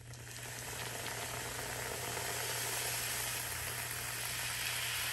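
Steady hissing noise over a constant low hum, starting abruptly and holding unchanged.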